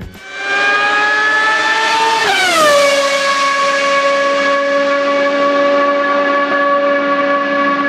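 Racing car engine at high revs, its note climbing for about two seconds, then dropping sharply as in a fast pass-by, then holding one steady high note.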